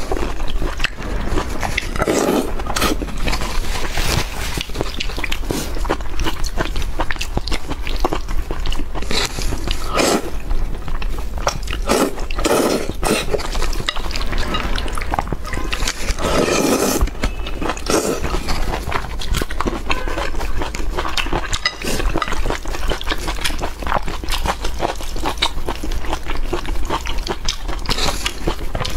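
People eating braised pork and rice close to the microphone: wet chewing and lip-smacking, with occasional sharper clicks.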